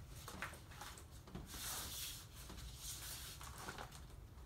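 Faint rubbing and handling noises of rubber weather stripping being worked around the edge of a rail car window's glass pane, with a small click about half a second in.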